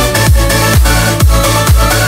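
Electronic dance music with a steady kick drum beating about twice a second under sustained synth chords; no vocals.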